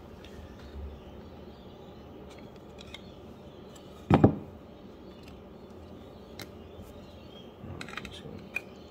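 Hands handling cards and hard plastic card holders on a desk: a few faint clicks and light rustles, and one loud, short thump about four seconds in.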